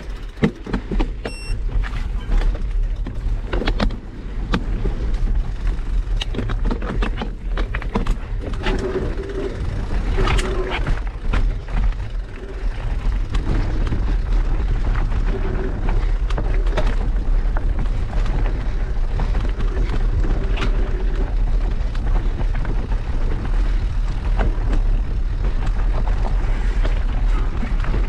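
Mountain bike rolling fast over a rocky dirt singletrack: wind rumbling on the bike-mounted camera's microphone, with a constant rattle of small knocks and clicks from the tyres and frame over stones. The noise rises sharply at the very start as the bike gets going.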